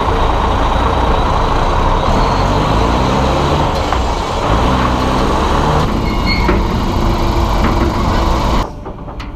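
Heavy farm vehicle's diesel engine running loud under load, its pitch rising and falling several times as it revs. The sound cuts off suddenly near the end.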